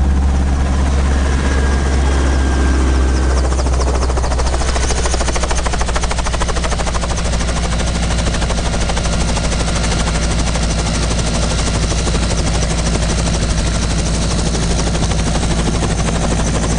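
Helicopter engine and rotor running steadily with a deep hum; about four seconds in, a fast, even beating comes in over it.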